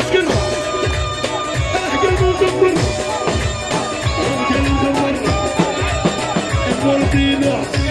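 Live rai and chaoui dance music: a heavy, steady drum beat under a melody line that bends up and down.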